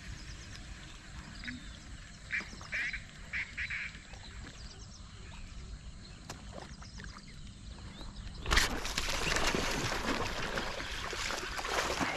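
A snakehead striking at a frog lure in a weedy pond: loud splashing and thrashing in the water that starts suddenly about eight and a half seconds in and goes on for about four seconds. Before it, a few short bird calls.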